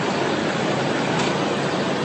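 Concrete hollow-block making machine running: a loud, steady mechanical din.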